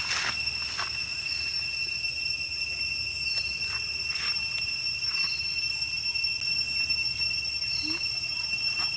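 Steady high-pitched insect drone, with scattered faint clicks and short chirps over it.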